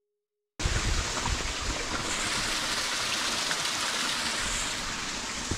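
Steady rush of running stream water, starting abruptly about half a second in, with a few faint clicks over it.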